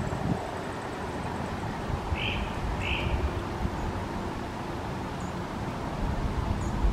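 Two short call notes from a house wren, about two and three seconds in, over a steady rumble of wind on the microphone.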